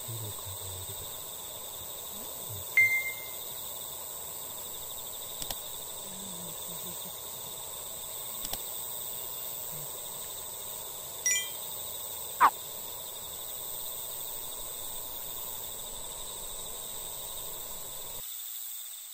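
Outdoor evening ambience: a steady high insect chorus, with a few short ringing, chime-like notes scattered through it and one quick falling call about twelve seconds in. It cuts off shortly before the end.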